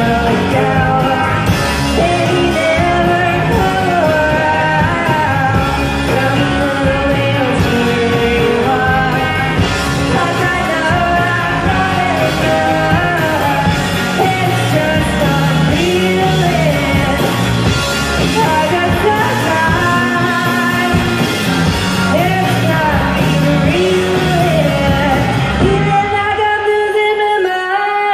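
Live rock band playing: electric guitar, bass guitar and drum kit under a sung vocal line. The low end drops away for a couple of seconds near the end.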